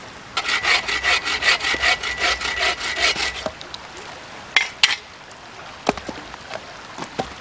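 Agawa Canyon Boreal 21 folding bow saw cutting through firewood in quick, even strokes for about three seconds, then stopping. A few sharp knocks and cracks follow.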